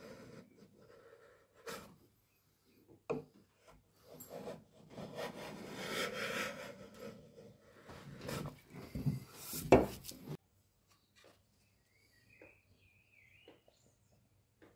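Wooden box parts rubbing and scraping against each other as they are handled, with several knocks, the loudest a sharp one just before ten seconds in; the sound then cuts off suddenly.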